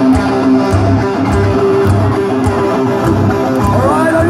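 Heavy metal band playing live through a concert PA, heard from within the crowd: loud electric guitars over a steady beat of low drum hits, with a bending pitch near the end.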